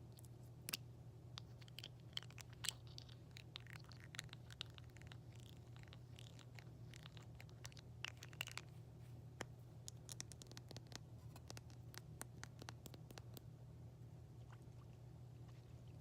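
Quiet, irregular fingertip and nail tapping on objects: many light sharp clicks with softer scratching between them, over a steady low hum.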